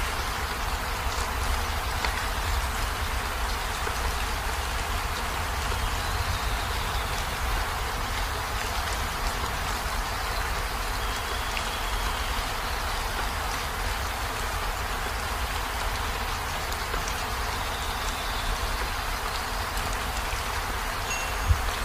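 Steady rain falling: an even hiss with a low rumble underneath, unchanging throughout.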